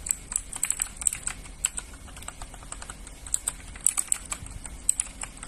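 Fast typing on a mechanical keyboard: a quick, irregular run of key clicks.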